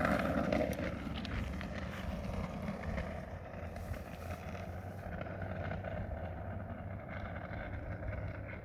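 Steady low rumble with wind on the microphone, from an electric scooter or hoverboard rolling along pavement during a race.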